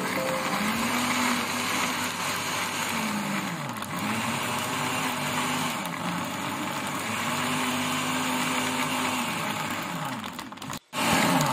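Countertop blender running, its motor whirring as it purées a liquid smoothie with ice and leafy greens. The motor pitch sags and recovers three or four times as the load shifts, and the sound cuts out briefly near the end.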